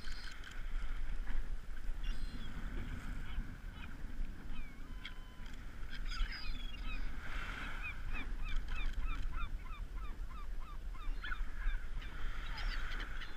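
A flock of gulls calling, many short cries overlapping, with a quick run of repeated calls in the middle. A low steady rumble of wind on the microphone lies underneath.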